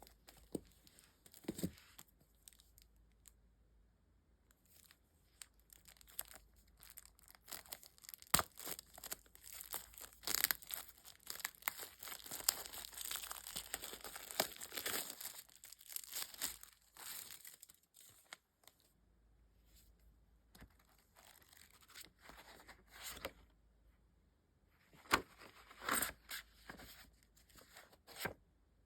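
Packaging being torn open and crinkled by hand: a long run of irregular crackling and ripping, busiest through the middle, with a few sharper rips near the end.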